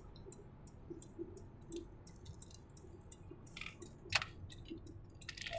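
Low, steady road and engine rumble inside a moving car's cabin, with scattered light clicks and a sharper click about four seconds in.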